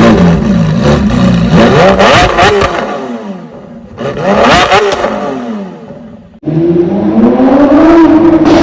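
Lamborghini Sián FKP 37's naturally aspirated V12 revving hard in a run of spliced passes. The engine pitch climbs and drops several times and fades away twice. After a sudden cut about six seconds in, it rises again and holds high.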